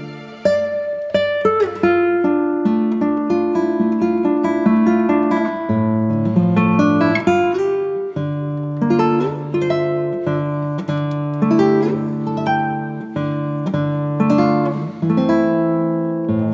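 Background music: an acoustic guitar plucking a melody over chords, note after note.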